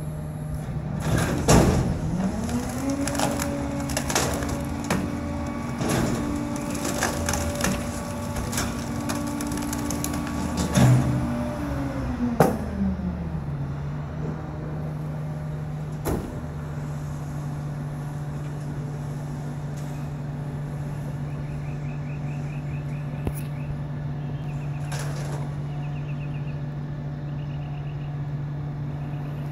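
Bulk-tipping rear-loader garbage truck's engine speeding up for about ten seconds while the hydraulics run, with loud wooden cracks and snaps from the sofa breaking in the hopper. About 13 seconds in, the engine drops back to a steady idle.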